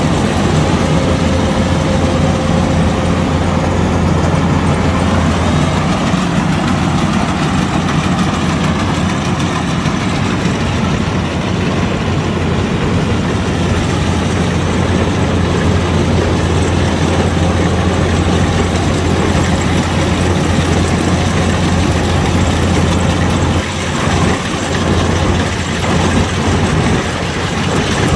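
Kubota DC-105X combine harvester running steadily while cutting ripe rice: a loud, even diesel engine hum with the machine's harvesting gear working.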